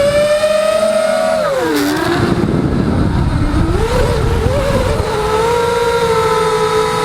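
Emax brushless motors and propellers of an Eachine Wizard FPV quadcopter whining in flight. About a second and a half in the pitch drops as the throttle comes off, with a rush of wind noise, then it climbs back and holds steady.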